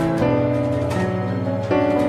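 Background music: sustained chords whose notes shift together every half second to a second.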